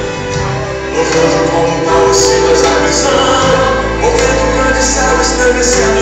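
Brazilian gospel worship song playing, with sung vocals over a full band backing.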